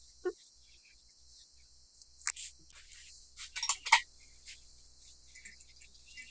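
A domestic cat gives a brief chirp right at the start. Scattered light clicks and rustles follow, the loudest a quick cluster about four seconds in, over a faint steady hiss.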